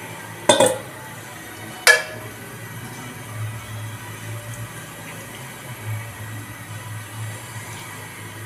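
Pot of salted water with basmati rice boiling on the stove. Two sharp clanks with a short ring come near the start, about a second and a half apart.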